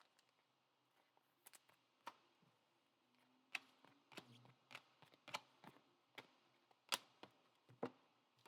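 Faint, scattered clicks and taps of trading cards being handled, about a dozen short ticks spread irregularly through the few seconds.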